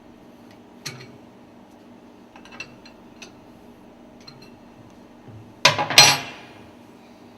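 Metal parts and tools being handled: a few light metallic clinks, then a loud clattering clank about six seconds in, over a steady low hum.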